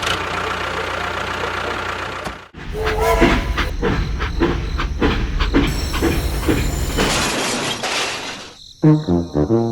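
Machine noise: a steady hiss, then after a short break a rhythmic mechanical chugging of about two to three beats a second, ending in a burst of hiss. Music starts near the end.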